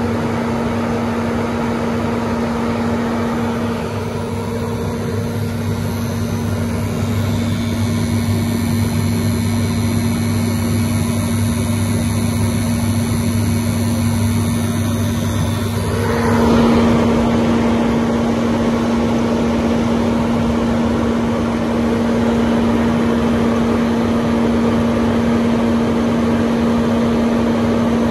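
Burner and blower fan of an old Hinode flat-bed grain dryer running, just lit, with a steady hum. About four seconds in, a lower buzz and a high whine join it, and both cut off suddenly about sixteen seconds in, leaving the blower and flame a little louder.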